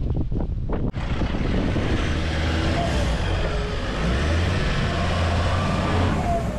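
A 4x4's engine revving under load as it climbs a steep slipway in four-wheel drive, with the pitch rising and falling. Wind buffets the microphone in the first second.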